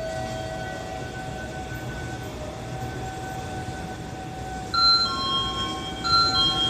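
A two-note electronic station chime, high then lower, sounds twice near the end over a steady hum with a few held tones.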